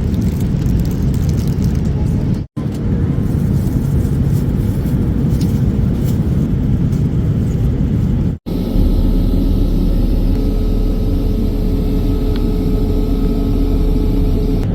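Steady low rumble of a Boeing 787 airliner's engines and airflow, heard inside the cabin. It is broken by two abrupt cuts, and after the second cut, about eight seconds in, it turns smoother with a steady deep hum.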